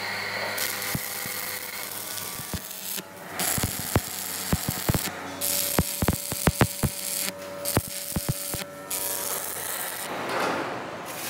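Machine-shop noise: a steady hum of machinery with a run of sharp, irregular metal knocks and clanks through the middle.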